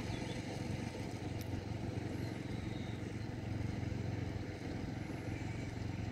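Steady low outdoor rumble with no distinct events, of the kind made by wind on the microphone or distant road traffic.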